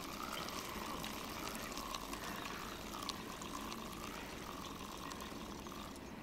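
Spinning reel being cranked to retrieve line with a crucian carp on, its whir rising and falling in pitch with each turn of the handle, about once every second and a half.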